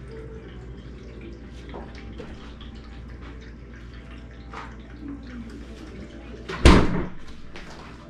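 Refrigerator door swinging shut with one loud thump about two-thirds of the way through, after a few faint clinks of items on the shelves, over a steady low hum.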